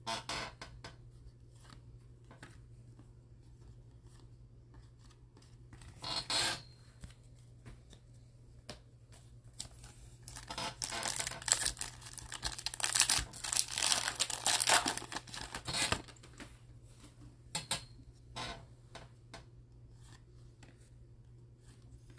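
Wrapper of a Donruss baseball card pack being torn open and crinkled: a dense crackle lasting about six seconds in the middle. Before and after it come short, light rustles and ticks of cards being handled.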